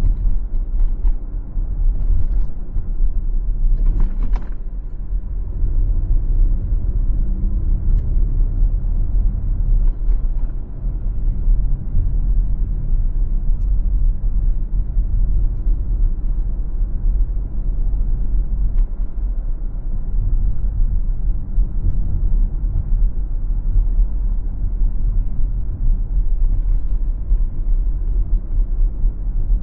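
Car driving along a city street: steady low engine and road rumble, with a short sharp knock about four seconds in.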